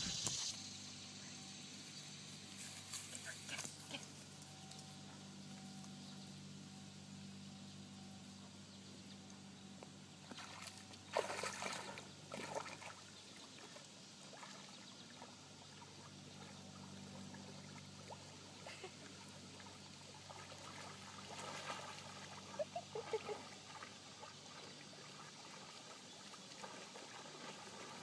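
Faint lakeside ambience: a low steady hum and light water sounds, with a few brief faint noises, the loudest about eleven seconds in.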